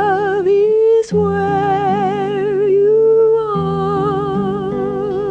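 A woman's voice singing a slow, wordless melody with a wide vibrato over sustained accompanying chords. She breaks off briefly for a breath about a second in.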